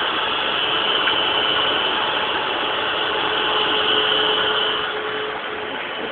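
Vacuum cleaner motor running with a steady high whine, which stops about five seconds in.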